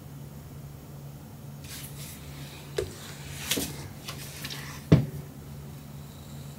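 A few soft rustles and light clicks, then one sharp knock about five seconds in, over a steady low hum.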